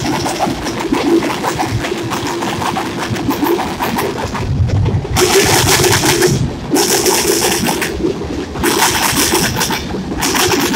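Freight train of covered hoppers and tank cars rolling past, with a steady rumble of steel wheels on rail. From about halfway through, loud bursts of hiss come and go every second or two.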